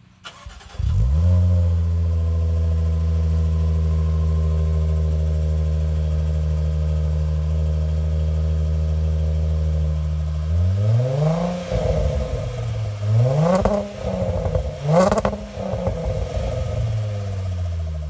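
Jaguar F-Pace 35t supercharged 3.0-litre V6 heard at the tailpipes through a QuickSilver sport exhaust. It starts with a flare of revs, then idles steadily. About ten seconds in it is revved three times, then drops back to idle.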